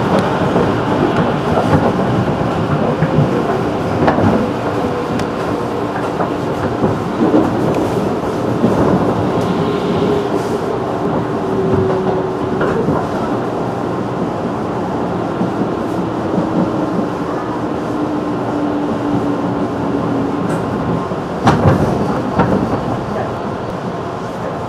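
211 series electric multiple unit running at speed, heard from inside the car: a steady rumble of wheels on rail with scattered sharp knocks. A faint tone slowly falls in pitch through the middle and fades out, and two loud knocks come close together near the end.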